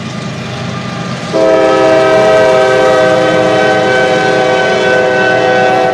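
A CSX diesel freight locomotive passing with a low rumble. About a second and a half in, its air horn sounds one long, steady blast that stops near the end.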